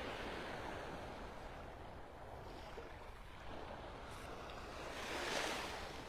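Small Gulf waves washing onto a sandy shore, with a louder wash about five seconds in.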